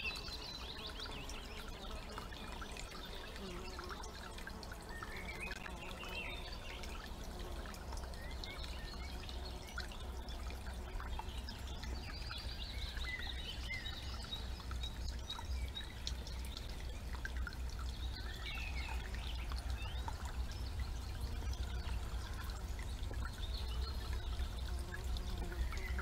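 Several woodland birds singing and calling in short chirps and warbles, over water trickling in a shallow stream and a steady low rumble.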